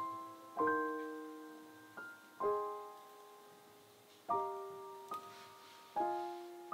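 Soft, slow piano background music: single chords struck every one to two seconds and left to ring out and fade.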